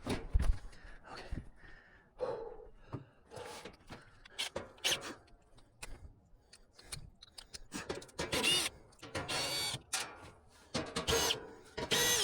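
Hand and power tool work on an air-conditioner condenser during a fan motor replacement: scattered metal clicks and knocks, with two short whirring runs of a driver or drill about two-thirds of the way in and near the end.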